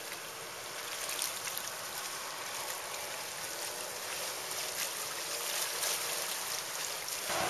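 25 HP two-stroke Mercury outboard driving an inflatable tunnel-hull speed boat at speed: a faint engine drone under a steady hiss of water and spray, growing louder near the end.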